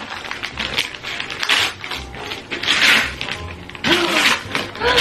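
Gift wrapping paper being torn and crumpled as a present is unwrapped, in several crinkly bursts, the loudest nearly three seconds in.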